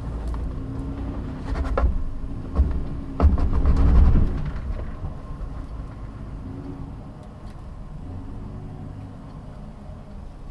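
2023 Nissan Frontier PRO-4X's 3.8-litre V6 and drivetrain crawling over rough off-road ground in four-wheel-drive low, with several sharp knocks as the truck bounces over the terrain. The engine grows louder from about a second and a half in, is loudest around four seconds, then settles to a quieter steady run.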